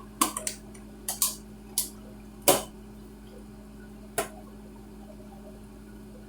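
Kitchen clatter: about eight sharp clicks and knocks of dishes and utensils being handled over the first four seconds, the loudest about halfway through, over a steady low hum.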